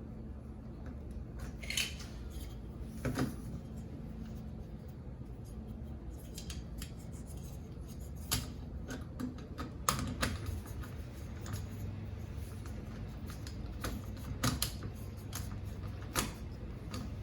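Irregular light metallic clicks and taps as door knob and latch parts are handled and fitted together, over a steady low hum.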